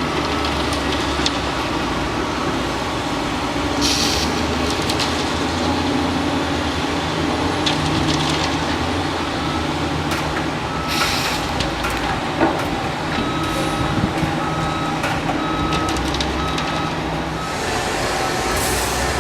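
Heavy construction machinery running steadily, with short bursts of air hissing now and then and a few clanks. Past the middle a reversing alarm beeps about once a second for several seconds.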